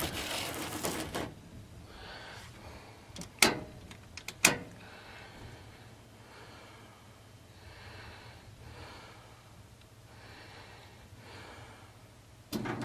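Two sharp clicks about a second apart, then faint rhythmic heavy breathing. Near the end, the old Goodman air handler's blower motor starts suddenly and runs steadily, now that its swollen run capacitor has been replaced.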